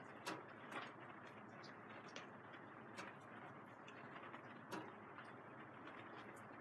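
Rain falling on the plastic film of a vinyl greenhouse: a faint, steady hiss with a few louder drops ticking sharply on the sheeting at irregular moments.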